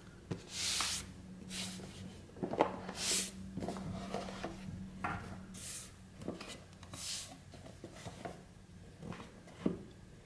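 A cardboard sunglasses box handled and slid out of its card sleeve by hand: a series of short swishing rubs of fingers and card sliding on card, with a few light knocks.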